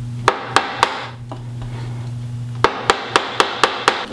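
Mallet striking a screwdriver held against the shifter housing of a T5 five-speed transmission to knock a stuck part loose: three sharp knocks, a pause, then six quick knocks at about four a second.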